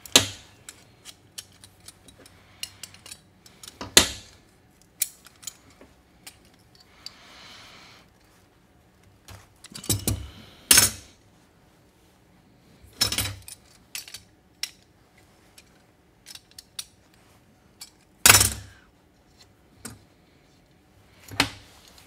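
A metal spring ground clamp, heavy welding cable and hand pliers clanking and clicking against a steel workbench as the clamp is unbolted from the cable. About half a dozen loud sharp clanks stand out among lighter clicks and rattles.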